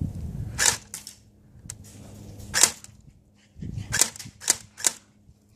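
Airsoft guns firing single shots: about six sharp cracks at uneven intervals, the last three coming in quick succession about half a second apart.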